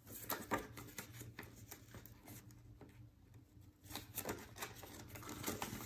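Paper banknotes and a clear plastic envelope rustling and crinkling as cash is handled and counted, in quick short bursts at the start and again from about four seconds in, with a quieter pause between. A faint steady low hum sits underneath.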